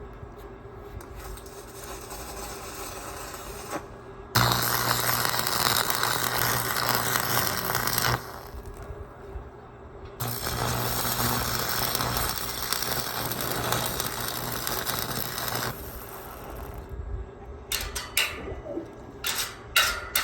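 Electric arc welding crackling and hissing in two runs, one of about four seconds and one of about six, each starting and stopping abruptly with a steady low hum underneath. Near the end come a few sharp metallic taps and knocks.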